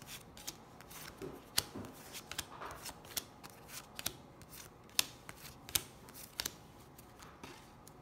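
Playing cards being dealt out by hand: an irregular run of sharp snaps and flicks as the cards come off the deck and land on a woven tablemat.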